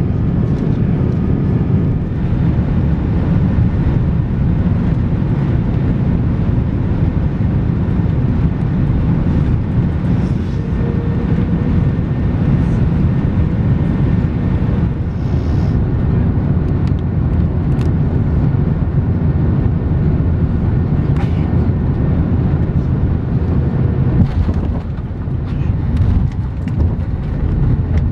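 Steady low rumble inside the cabin of an Airbus A330-200 airliner, from its engines and the airflow, with a few light knocks and rattles in the second half.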